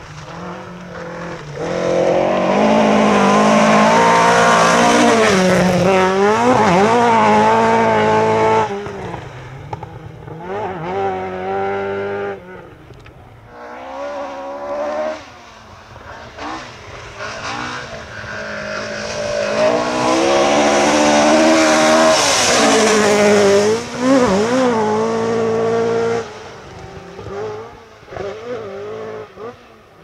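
Rally car engine running at high revs through a stage. The revs rise and fall with gear changes and lifts, and it is loud twice: a few seconds in and again about twenty seconds in, with quieter engine sound between.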